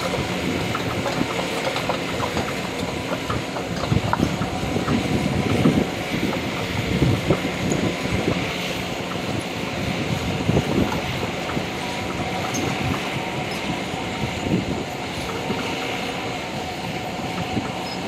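Kobelco SK200 hydraulic excavator travelling on its steel tracks: the diesel engine runs at a steady pitch under irregular clanking and rattling of the track links, loudest in the middle.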